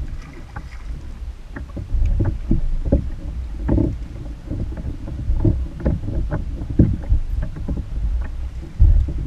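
Wind buffeting the microphone, with irregular knocks and splashes as a hooked striped bass thrashes at the surface beside the kayak.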